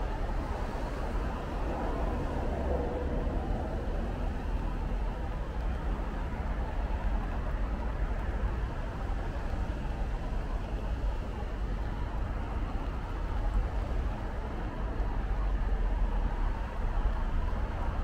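Steady city traffic noise on rain-wet roads: a low rumble of engines with tyre hiss, swelling a little now and then as vehicles pass.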